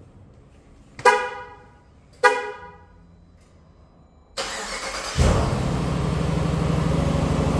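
Dodge Durango R/T's horn chirps twice, then its starter cranks and the 5.7 HEMI V8 fires up and runs steadily.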